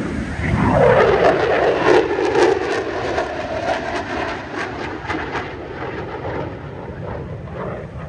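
F-35 fighter jet's single afterburning turbofan roaring as the jet flies past: the roar swells about a second in, drops in pitch as it passes, crackles for several seconds, then fades away.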